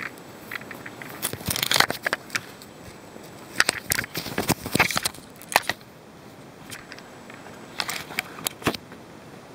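Three bursts of close crackling and rustling, each a second or two long, as a dog tugs at a sock with the handheld camera moving close by.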